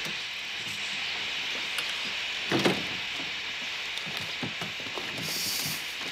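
Steady hiss of steam from a standing steam train, with a clunk from the carriage door about halfway through and a few lighter knocks. Near the end the hiss briefly surges louder and brighter.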